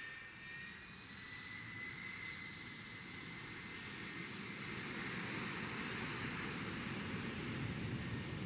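The IAI Kfir fighter's J79 turbojet running as the jet taxis: a high whine over a rushing jet noise, getting louder toward the end as the aircraft turns its exhaust toward the listener.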